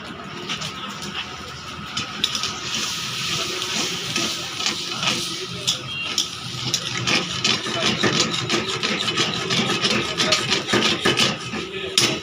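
Kitchen work: a utensil clicking and scraping irregularly against cookware, over a steady hiss that comes in a couple of seconds in.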